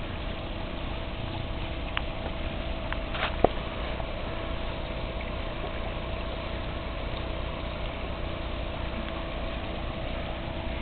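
Water running steadily down a newly built koi pond waterfall over bare rubber liner during its first test, with a steady hum underneath. A couple of sharp clicks come about two and three and a half seconds in.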